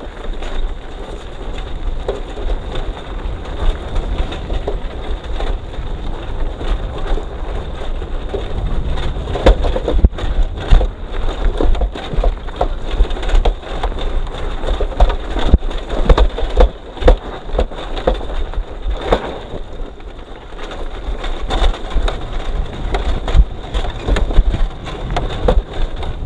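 Motorcycle coasting down a dirt track with its engine off: tyres crunching over gravel and the bike rattling and knocking irregularly over bumps, with wind rumbling on the microphone.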